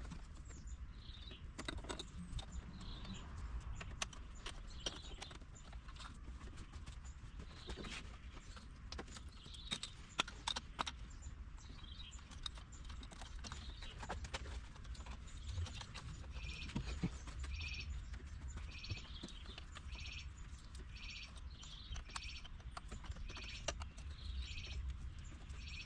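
Scattered light clicks and knocks of hands and tools working around the engine, with a bird chirping repeatedly in the second half.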